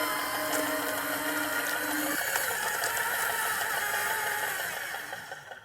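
Small electric motors and gearboxes of radio-controlled construction models whining steadily; one lower tone cuts off about two seconds in, and the sound fades out at the end.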